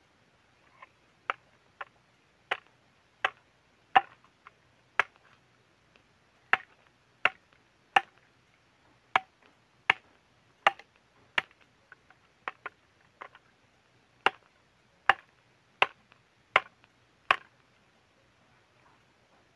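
Mandau machete blade chopping repeatedly into an animal skull: about twenty sharp, cracking strikes, a little faster than one a second with short pauses, stopping about 17 seconds in. The blows are a test of the blade's edge on horn and bone.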